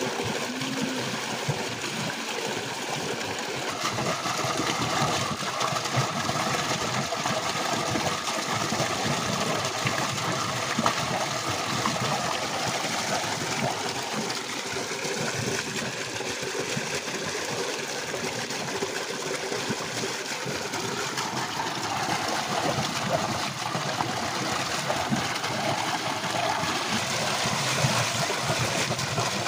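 Water gushing steadily from a pump's outlet pipe into a concrete tank, with a faint steady hum under it.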